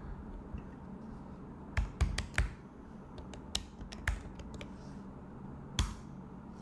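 Typing on a computer keyboard: a short run of irregular key clicks, bunched in quick groups, with one louder single click near the end.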